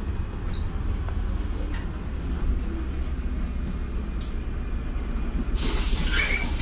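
Inside a LiAZ 5292.67 city bus: a steady low rumble from its YaMZ-53624 compressed-natural-gas engine and running gear. About five and a half seconds in, a loud hiss of compressed air starts and keeps going, from the bus's pneumatic system.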